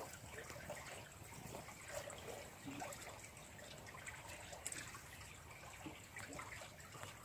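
Small, shallow creek trickling faintly over a pebble bed.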